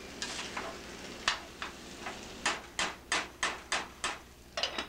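A spoon scraping and knocking against a pot of cooked white rice as the rice is stirred and fluffed. There are about ten short scrapes, and they quicken to about three a second in the second half.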